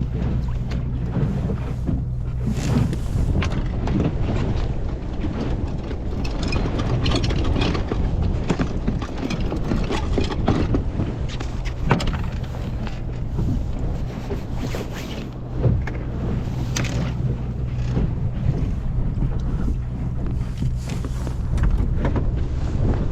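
Wind buffeting the microphone over a steady low hum, with scattered light knocks and clicks from the boat.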